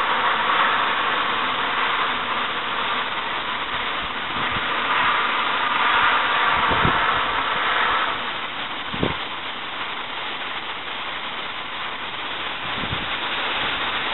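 Steady rush of wind through trees ahead of an approaching thunderstorm, with a few brief low thumps of wind buffeting the microphone.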